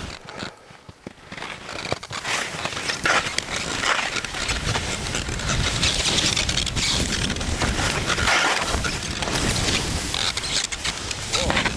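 Skis scraping and carving over snow on a steep descent, in repeated surges of hissing noise.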